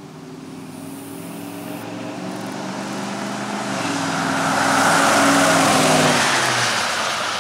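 1999 Chevrolet Silverado 2500's stock 6.0-litre LQ4 V8 running through a Summit Racing dual-chamber muffler on a 3-inch exhaust as the truck drives up and passes by. It grows louder to a peak about five seconds in, then fades as it moves away.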